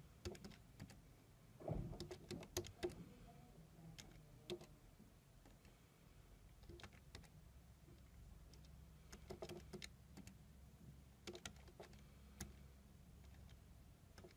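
Faint clicks of the keys on a Casio fx-82MS scientific calculator being pressed one after another in short runs, with a soft knock about two seconds in.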